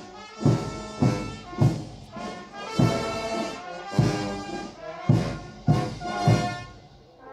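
Brass band playing, sustained brass chords over a steady bass drum beat, dying away near the end.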